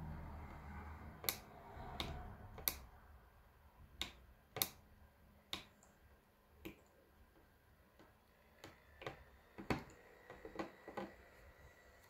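Push button of an analog thumbstick module clicking, pressed about fourteen times at an uneven pace, each press a short sharp click.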